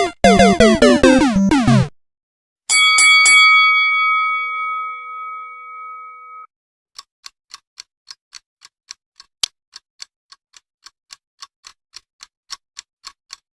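A string of sound effects. First comes a quick run of falling cartoon-like tones. Next a bell-like ding is struck a few times and rings out for a few seconds. Then a clock starts ticking steadily, about three to four ticks a second.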